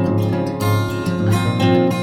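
Background music: acoustic guitar played with plucked and strummed chords.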